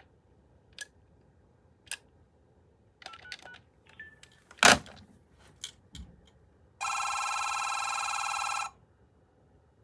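AT&T Trimline 210 telephone's electronic ringer on its third ringtone setting, sounding one warbling ring about two seconds long near the end. Before it come several light clicks and one sharper click.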